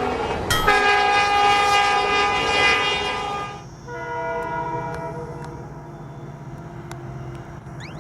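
Train horns sounding long held blasts: a loud chord-like blast from just after the start for about three seconds, then a quieter, lower horn tone held through the rest.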